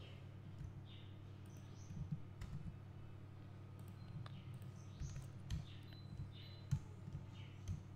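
Scattered faint computer mouse clicks and a few keyboard key presses over a steady low electrical hum.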